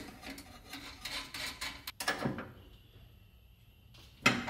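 Hands working on battery and starter-solenoid wiring: short clicks and rattles of small metal parts and tools being handled, busiest about a second in, with one sharp click about four seconds in, the loudest sound.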